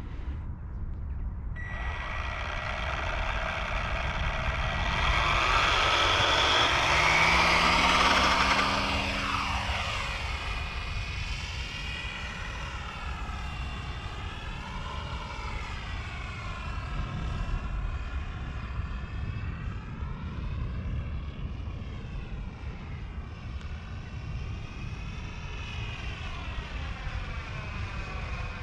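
RC model airplane's motor and propeller starting up and running at high speed as the plane takes off, loudest a few seconds in as it passes close, then a steady whine whose pitch wavers up and down as it circles overhead.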